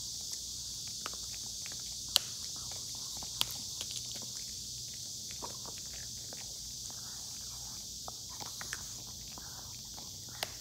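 Maltese dog rooting its nose through a fabric mat: soft rustling and small scattered clicks. Two sharper clicks come about two and three and a half seconds in.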